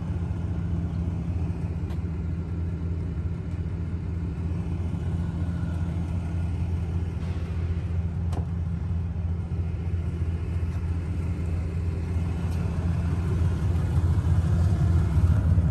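Steady low rumble of a truck engine idling, with one short click about eight seconds in.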